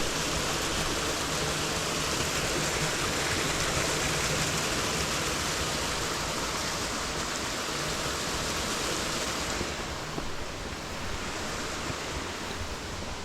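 Rushing water of a waterfall, a steady hiss. About ten seconds in it turns duller as its high end drops away.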